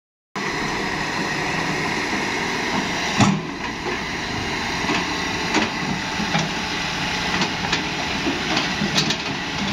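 Hitachi crawler excavator's diesel engine running steadily, with one sharp metal clank about three seconds in and lighter clanks and knocks scattered after it as the machine works its boom and bucket.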